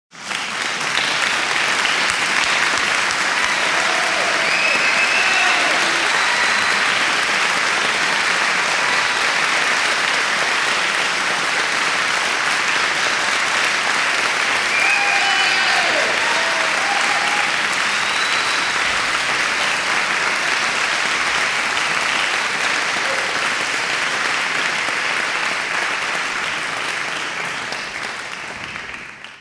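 Large crowd applauding steadily, with voices calling out twice, a few seconds in and again about halfway. The clapping dies away over the last few seconds.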